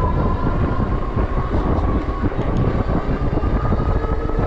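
Wind rushing over the microphone while riding a 750-watt Synch Super Monkey electric bike, with a steady thin whine from its electric motor.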